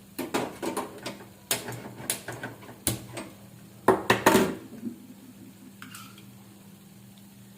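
Metal pans and utensils clinking and knocking together, a dozen or so sharp strikes over the first four seconds or so, as the cook sets up to fry cashews and raisins. After that only a faint steady hum remains.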